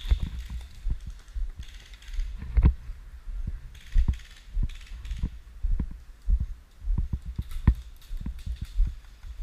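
A run of irregular dull thumps, about two or three a second, with a few sharper clicks.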